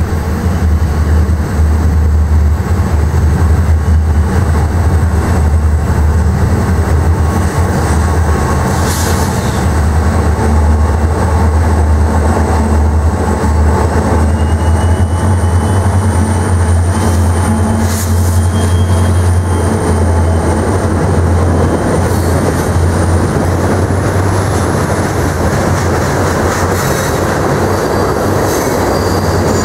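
Freight train passing: EMD SD40-2 and GP40-2 diesel locomotives running with a heavy low drone, then loaded rock hopper cars rolling by. Faint high wheel squeal sounds over the rumble.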